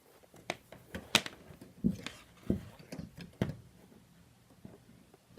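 A series of light clicks and knocks from plastic plugs and adapters being handled, about half a dozen spread over the first three and a half seconds, the sharpest about a second in.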